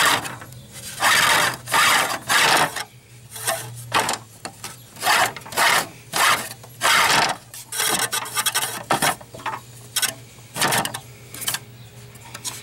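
Plastic fan shroud scraping and rubbing in a run of short, irregular strokes as it is twisted and pushed down into place in the engine bay.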